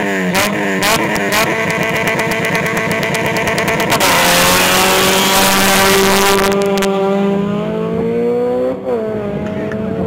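Supercharged Honda Civic Si four-cylinder engine revved in blips and held high at the start line. About four seconds in it launches with a sudden loud hiss, and the engine pitch climbs steadily as the car accelerates down the strip. The pitch drops sharply at a gear change near the end, then climbs again.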